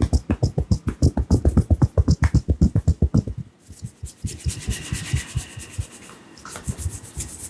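Barber's hands rapidly tapping during an oil massage, about nine strokes a second, changing a little after three seconds to quieter rubbing of oiled hair and skin.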